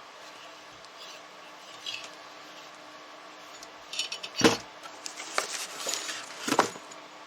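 Small hard objects clinking and knocking together as the contents of a mailed package are handled: a few faint clicks, then from about four seconds in a cluster of sharper clinks and knocks, the loudest two about two seconds apart, over a faint steady hum.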